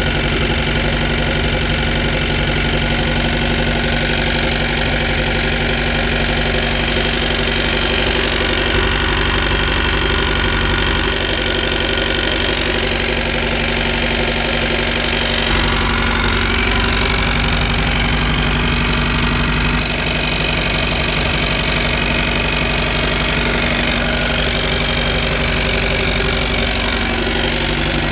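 MerCruiser 3.0 four-cylinder sterndrive engine running steadily, with a knocking that the owner traces to the outdrive.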